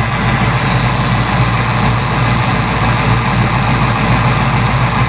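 Ford Fox Body Mustang engine idling steadily with the radiator cap off while its cooling system pushes out trapped air.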